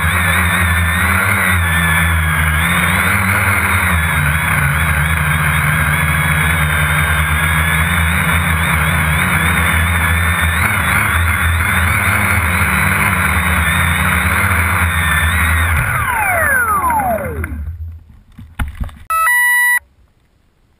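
Quadcopter's electric motors and propellers buzzing steadily, heard from the onboard camera, the pitch wavering slightly with throttle. About sixteen seconds in, the motors spin down in a falling whine. The craft comes down in the grass with a short loud clatter and a few brief beeps, after which it is nearly silent.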